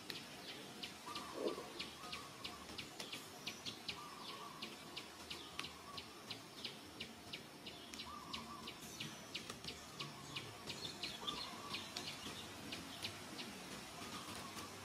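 Forest ambience: a steady run of short high chirps, about three or four a second, with brief lower calls now and then.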